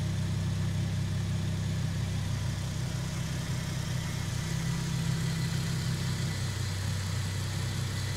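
Toyota 2JZ-GTE VVT-i inline-six with a large single turbocharger, idling steadily.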